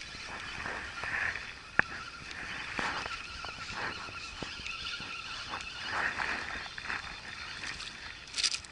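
Spinning reel being cranked steadily, with a faint thin whine from its gearing, while reeling in a small hooked perch. There is a sharp click about two seconds in and a brief rushing noise near the end.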